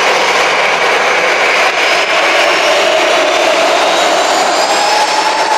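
Boeing 737-800 jet engines (CFM56-7B turbofans) running, a steady loud rush with a whine that rises slightly in pitch.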